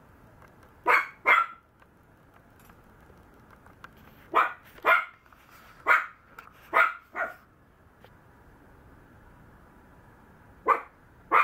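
Maltese puppy barking in short barks: two about a second in, a run of five in the middle, and two more near the end.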